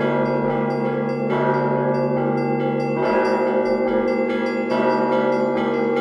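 Russian Orthodox church bell ringing (zvon): many bells sounding together in a continuous wash of overlapping tones, with a fresh strike coming in about every one and a half to two seconds.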